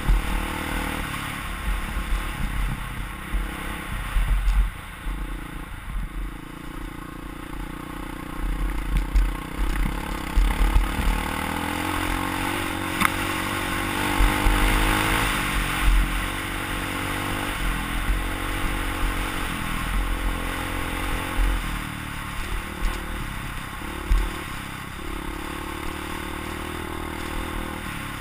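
Dirt bike engine running under load, its pitch rising and falling repeatedly with the throttle, over a heavy low rumble of wind buffeting a helmet-mounted microphone, with rattles and clatter from the bike on the rough dirt track.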